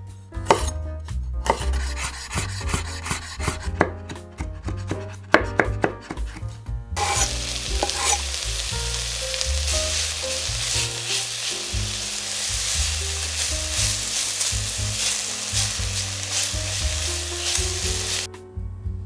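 A chef's knife chops garlic on a wooden chopping board in a quick run of cuts. About seven seconds in, this gives way to sliced onion sizzling in hot olive oil in an enamelled cast-iron pot as it is stirred with a spatula. The sizzling stops just before the end.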